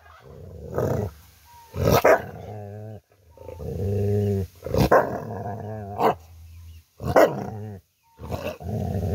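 Rottweiler growling in long, drawn-out rumbles that waver in pitch, broken by about five short, sharp barks.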